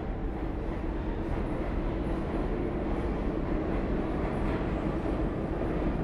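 New York City subway train running with a steady rumble, growing a little louder over the first second.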